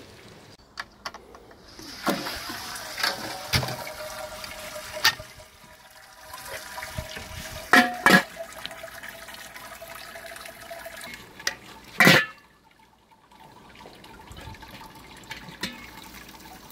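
Water running and splashing in a home-brewing kettle as mash and sparge water are handled, with clicks and knocks of equipment and a steady hum through the first half. One louder knock comes about two-thirds of the way in.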